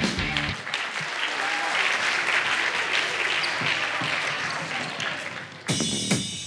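An audience applauding in a theatre, tapering off over a few seconds. Near the end, electronic dance music with a steady beat starts.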